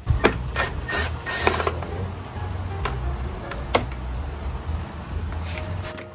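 Ratchet wrench clicking, with sharp metal clicks and knocks at irregular intervals, as fasteners are undone to get a dead battery out of a motorcycle.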